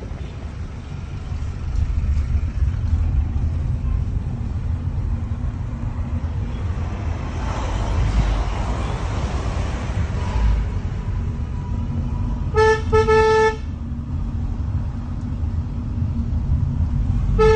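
Steady low engine and road rumble inside a car on a winding mountain road, with a swell of rushing noise around the middle. A car horn honks about thirteen seconds in, a quick blip then a longer blast, and sounds again right at the end; the horn is the loudest thing.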